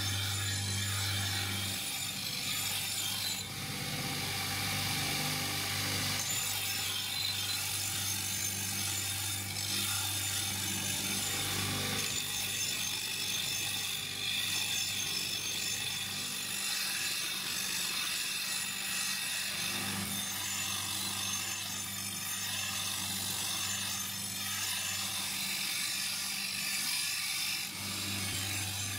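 Workshop abrasion: continuous scraping and rasping of a knife part being ground, sanded or filed, over a low hum that drops out and comes back several times.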